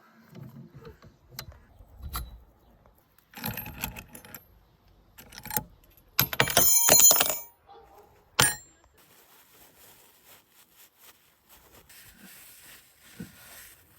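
Metal parts of a scooter headset clicking and clinking as they are handled, with one loud ringing metallic jangle about six seconds in and a sharp click just after.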